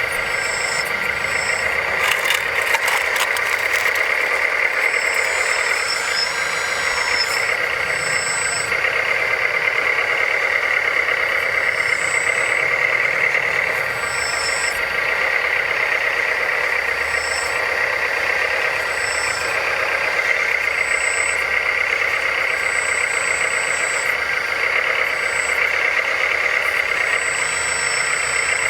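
Electric motors and hydraulic pumps of 1/14-scale RC construction machines running with a steady high whine. Short high-pitched tones come and go over it, and a few clicks sound about two to three seconds in.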